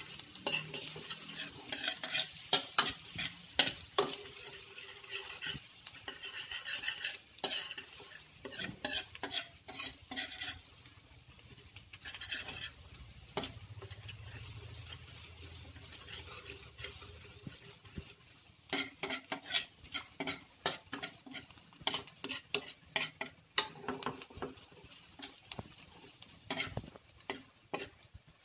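Chopped garlic sizzling in melted butter in a wok while a spatula is stirred through it, scraping and tapping against the pan. The stirring eases off for a few seconds midway, leaving mostly the sizzle, then picks up again.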